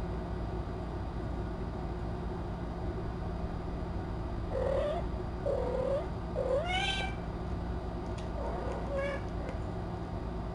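Cat meowing: four short, rising mews in the second half, over a steady low room hum.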